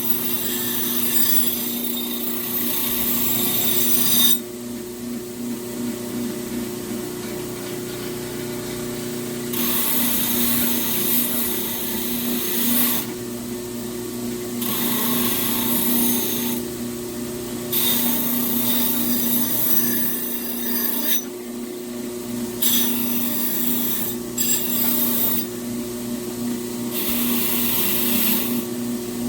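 Electric grinder running steadily, with the steel pressed against it in repeated passes of a few seconds each, each pass giving a loud, high grinding hiss over the motor's hum.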